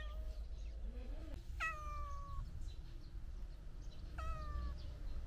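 Kitten meowing: a short meow at the start, then two longer, high meows that sag slightly in pitch, about a second and a half in and again about four seconds in.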